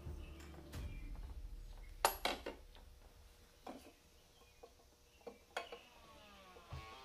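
A handful of light clacks and knocks from a gloved hand and tools on plastic engine parts while the plastic oil filter housing cap on top of a 3.2-litre V6 is unscrewed by hand. The loudest is a sharp clack about two seconds in.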